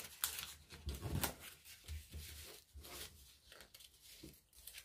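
Origami paper rustling and crinkling under the fingers as it is handled, folded and pressed flat, in a run of short soft rustles, the loudest about a second in.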